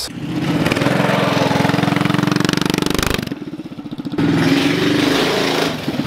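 Mini bike's small single-cylinder engine running at speed. It drops away for about a second in the middle, then pulls hard again.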